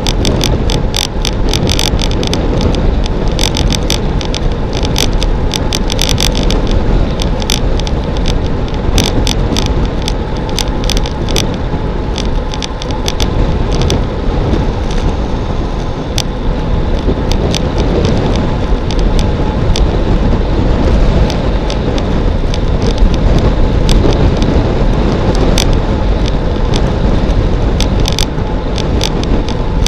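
Steady rush of wind over the microphone and tyre noise from a road bike coasting downhill at about 50 km/h, with frequent sharp clicks throughout.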